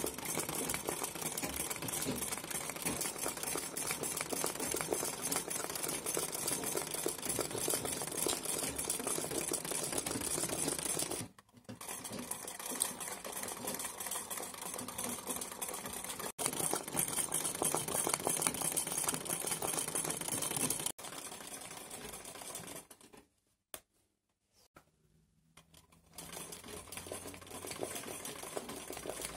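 Old black sewing machine running fast, its needle stitching in a rapid, even clatter during free-motion satin-stitch embroidery. The sound breaks off sharply twice. It goes almost silent for a few seconds near the end, then comes back quieter.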